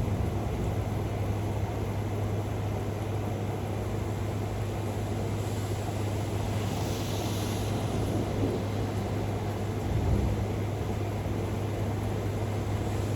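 Thunderstorm ambience: a steady hiss of storm noise over a constant low hum. The low rumble of a thunderclap dies away at the start, and a faint low rumble of distant thunder comes about ten seconds in.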